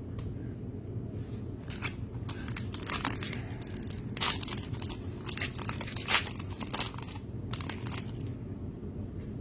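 A plastic trading-card pack wrapper being torn open and crinkled: a run of sharp crackling rips starting a second and a half in and stopping near the end. There is a steady low hum underneath.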